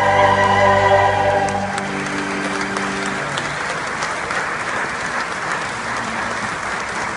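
Choir and organ holding a final sustained chord that cuts off about two seconds in, followed by a congregation applauding steadily.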